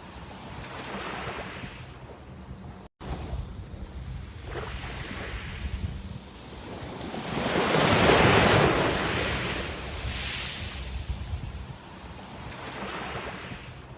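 Sea waves breaking and washing in, rising and falling in swells, the largest about halfway through, over a low rumble of wind on the microphone. The sound cuts out for an instant about three seconds in.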